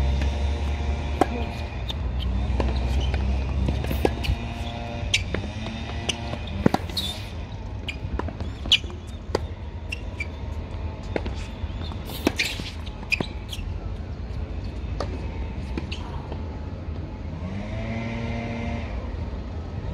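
Tennis balls being hit and bouncing on a hard court: irregular sharp pops and thuds, loudest in the first half. Underneath are wind rumble on the microphone and a distant engine hum that swells twice, about two seconds in and near the end.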